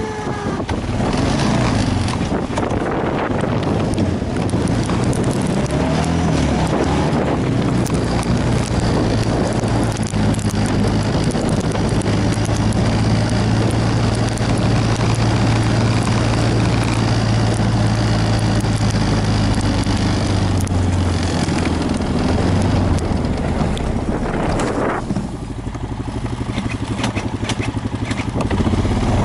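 An engine running steadily under a noisy rush of wind, dropping in level near the end.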